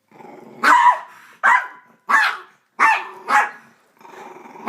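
A dog barking five times in quick succession, with quieter low growling between the barks: the aggressive warning of a dog guarding a bag of candy it has grabbed.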